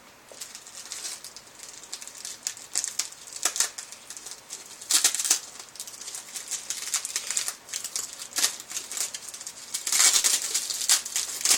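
Packaging being handled and unpacked: irregular crinkling and rustling, with louder bursts of crackle about 5 and 10 seconds in.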